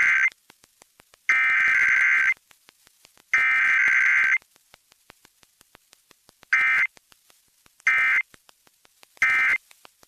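Emergency Alert System SAME digital data bursts from a Required Weekly Test, a harsh modem-like screech. The first burst ends just after the start, then two more header bursts of about a second each follow a second apart. About halfway through come three short end-of-message bursts, and no attention tone sounds.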